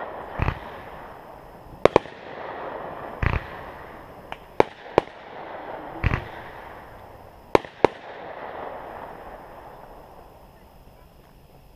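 Backyard aerial fireworks going off: three dull booms about three seconds apart, each followed by a couple of sharp cracks and a spell of crackling, dying away near the end.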